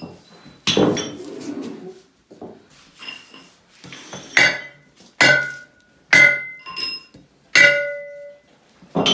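Hammer strikes on steel foundation pier hardware: about six sharp metal-on-metal clanks, irregularly spaced, each ringing briefly, with a few lighter knocks between them.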